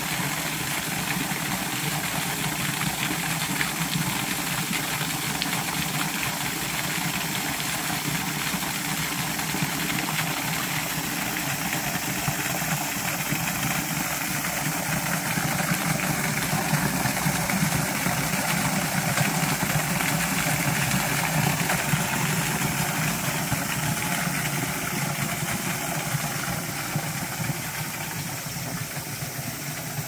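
Steady rushing splash of a thin waterfall pouring down a rock face into a shallow stone pool, a little louder partway through.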